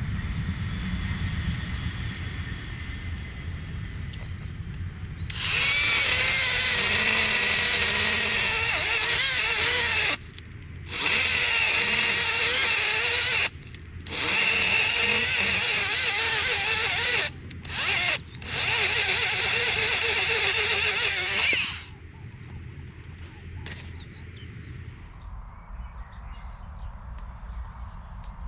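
Chainsaw revved hard in several bursts, each lasting a few seconds, with the pitch wavering as it cuts and short drops back to idle in between. A low engine rumble runs underneath.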